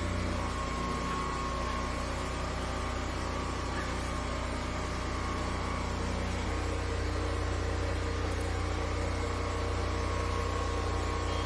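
High-pressure sewer jetter running steadily while its hose works in a blocked drain: a constant machine drone with a steady hum, its tone shifting slightly about six and a half seconds in.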